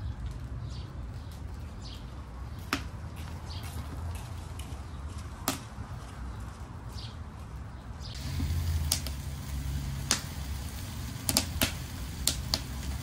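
Wood fire crackling in a drum stove under a stockpot, with scattered sharp pops that come more often and closer together in the last few seconds, over a low steady rumble.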